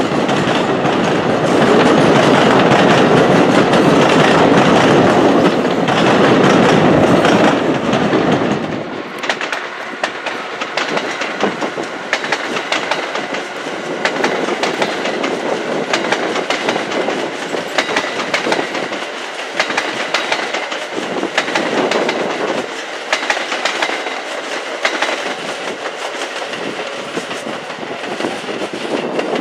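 Passenger trains passing on multiple-track mainline. First an NJ Transit MultiLevel commuter train runs by with a loud, heavy rumble. About nine seconds in, that gives way to a quieter Amtrak train behind an ACS-64 electric locomotive, its wheels clicking rapidly over rail joints.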